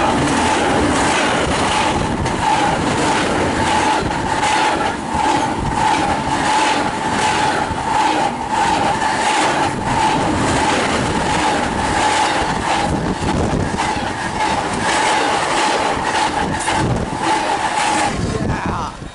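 Double-stack intermodal freight train passing close by at about 71 mph: a loud steady rush of steel wheels on rail, with rapid rhythmic clacking as the cars' wheel sets go by and a steady high tone. The sound drops off sharply as the last car passes near the end.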